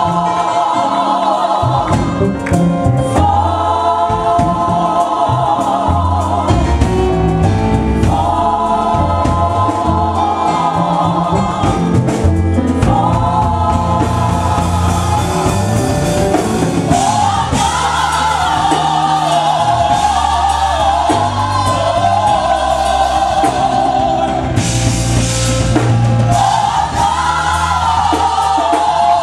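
Gospel choir singing in held chords over a steady bass and drums.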